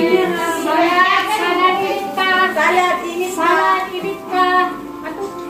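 A song playing: a high-pitched voice singing phrases over steady instrumental notes.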